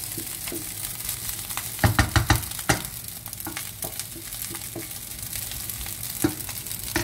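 Fried rice sizzling in a nonstick frying pan while a wooden spatula stirs and scrapes it. A quick run of knocks, the spatula striking the pan, comes about two seconds in, with single knocks a second later and near the end.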